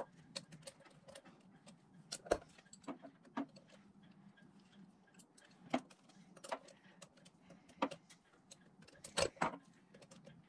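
Irregular metallic clicks and clinks from a socket, extension and ratchet working the cover-plate screws of a Yanmar raw-water pump, with sharper clinks about two, six, eight and nine seconds in.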